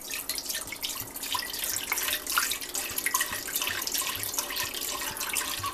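Red wine pouring in a steady stream from a glass bottle into a pot, splashing onto the wine already in it.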